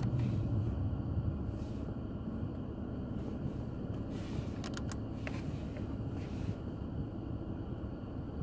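Steady low rumble of the Audi A6 C6, heard inside its cabin, with a few light clicks along the way; no audio plays from the newly fitted 10.25-inch head unit, whose sound is cutting out.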